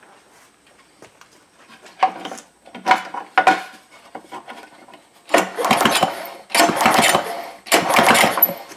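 The recoil starter rope of an Evinrude 3.3 hp single-cylinder two-stroke outboard is pulled, spinning the engine over with the spark plug out to test for spark. The engine does not fire. There are a few short pulls first, then three longer, louder pulls about a second each.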